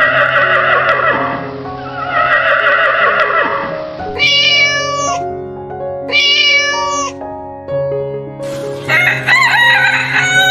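Rooster crowing twice, each crow about a second long, over steady background music. Other animal calls come before and after the crows.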